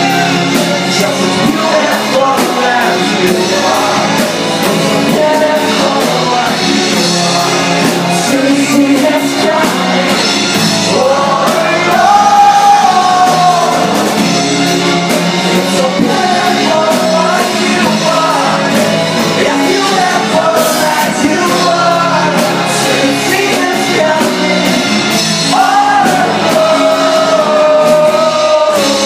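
Live acoustic rock performance: a male singer sings with long held notes over acoustic guitar and electric bass, in a large hall.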